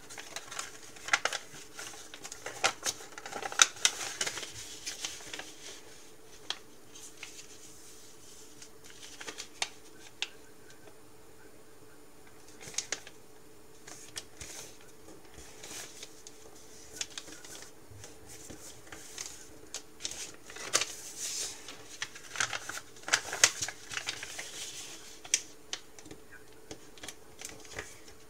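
A square sheet of paper being folded and creased by hand on a table: crinkling, rustling and sharp crackles in irregular bursts, busiest in the first few seconds and again about two-thirds through. A faint steady hum runs underneath.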